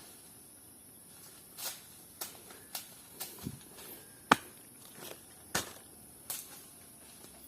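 Irregular light knocks and clicks, with one sharp crack about four seconds in, over a faint steady hiss; no chainsaw is running.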